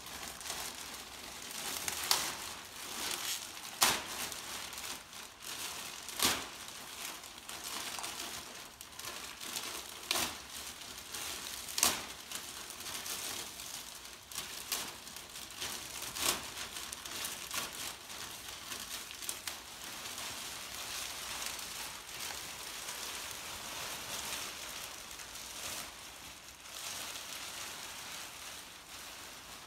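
Thin plastic masking sheet crinkling and rustling as it is pulled off a freshly painted tractor. A handful of sharp snaps stand out in the first half.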